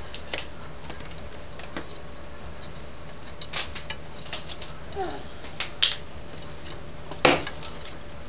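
Scattered sharp clicks and taps of plastic and metal as power supply cables and connectors are handled inside a computer case, over a faint steady hum. The loudest is a knock about seven seconds in.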